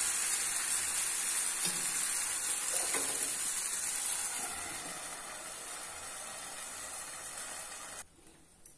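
Dosa batter sizzling on a hot tawa, a steady hiss. A steel lid is set over the pan with a light clank about three seconds in; the sizzle then grows fainter and cuts off suddenly near the end.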